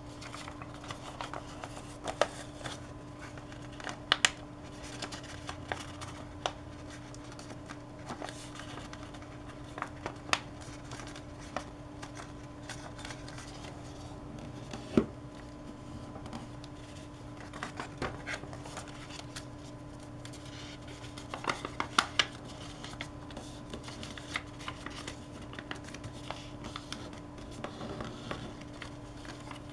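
Sheet of origami paper being folded and creased by hand on a table: irregular rustles, crinkles and sharp taps and snaps as the folds are pressed down, under a faint steady hum.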